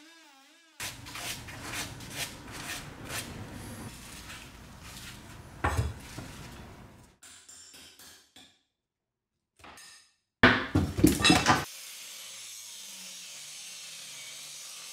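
Rapid irregular knocks and scraping as a steel hand tool chips and pries at a rotten wooden bottom plate, with one heavier knock about six seconds in. A loud burst of clattering comes a little after ten seconds, followed by a steady faint hiss.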